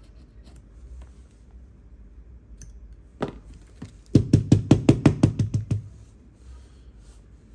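Metal tweezers faintly scraping leftover adhesive from a phone's frame, then, a few seconds in, a quick run of about a dozen sharp taps, roughly seven a second, lasting under two seconds.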